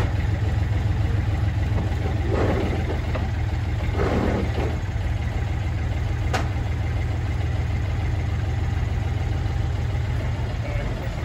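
Engine of a tracked dumper running steadily as it crawls along a trailer deck, with a single sharp click about six seconds in.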